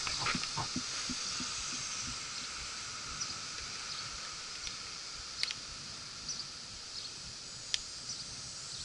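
Footsteps on a hiking trail: a run of low thuds in the first second, then only a few scattered light scuffs and clicks, over a steady high hiss.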